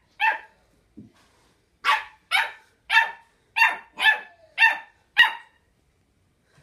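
Small puppy barking: eight short, high-pitched yaps, one right at the start, then after a pause seven more in a quick run, about two a second.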